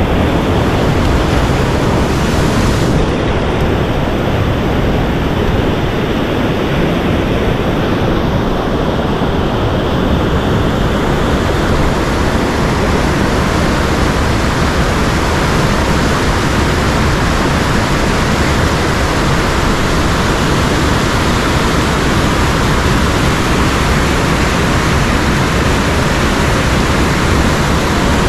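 Loud, steady rush of white water in a mountain headwater stream, with the hiss growing brighter about three seconds in.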